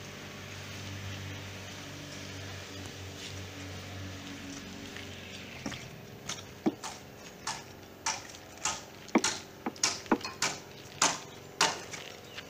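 A long-handled digging tool chopping into packed earth: a steady run of sharp strikes, about two a second, starting about halfway through. Before that, a faint low hum.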